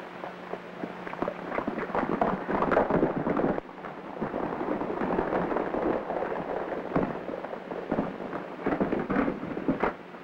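Horses' hooves clattering and stamping on dirt, cut off abruptly about three and a half seconds in. Then the scuffling, blows and thumps of a fistfight run through the rest, over a crackly old film soundtrack.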